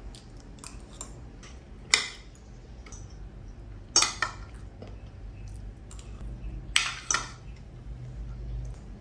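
Spoon and fork clinking and scraping against a plate while eating: three sharp clinks a few seconds apart, with lighter taps between, over a faint low hum.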